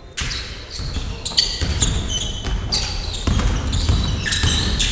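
Basketball game sounds on a wooden gym floor: sneakers squeaking in short, high chirps again and again, among the knocks of the ball and players' feet.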